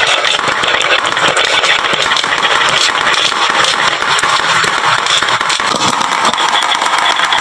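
Many marbles rolling and clattering down a wooden marble run slope: a dense, steady rattle of countless small clicks.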